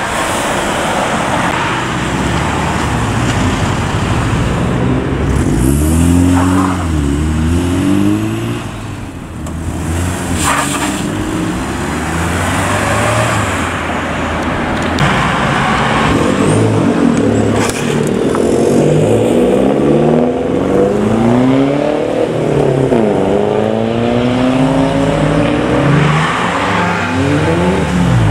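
Several modified cars pulling away one after another, their engines revving up through the gears in repeated rising sweeps over tyre and road noise.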